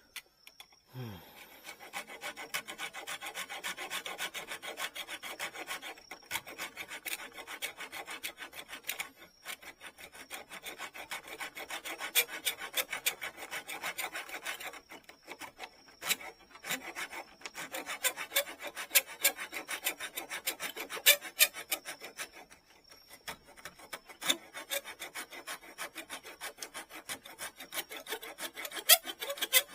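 Bamboo rod tip being filed or sanded by hand, in rapid back-and-forth strokes broken by short pauses every few seconds.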